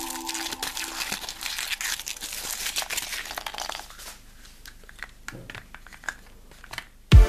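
Thin foil wrapper of a Kinder Surprise chocolate egg crinkling and tearing as it is peeled off by hand, for about four seconds. It then goes much quieter, with a few faint clicks.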